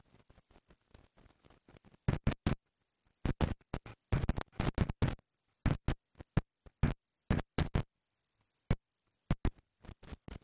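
Wind buffeting the camera's microphone in irregular loud gusts, cutting in and out with near-silent gaps between them, starting about two seconds in.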